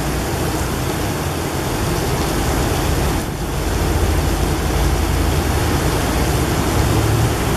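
Heavy rain pouring down in a downpour: a steady, loud rushing hiss.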